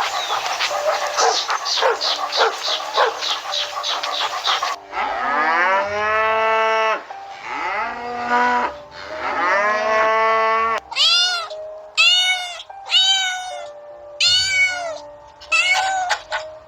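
A series of animal calls: a run of quick repeated chirps, then three long, drawn-out calls that rise and fall in pitch, then several short, high calls.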